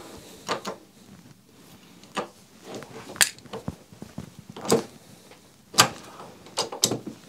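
Metal clicks and clunks from a single-stage reloading press as the sizing die is fitted and the handle is worked to resize a rifle case, a series of separate sharp knocks about a second apart. The stroke was stiff enough that the reloader reckons the case wanted a little more lube.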